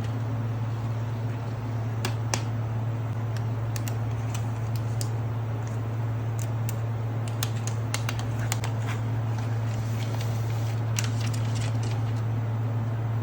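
Scattered light clicks and taps of an iPad 10 box and its packaging being handled and opened, over a steady low hum.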